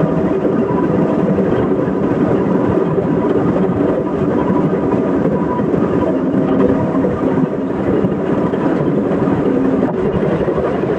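Excavator's diesel engine running steadily, a loud continuous drone with a rough low rumble.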